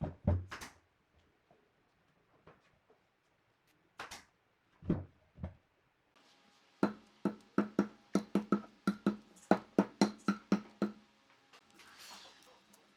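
Wood being struck with a hand tool: a few scattered sharp knocks, then about halfway through a fast, even run of about four or five knocks a second for some four seconds, with a low ringing tone under them.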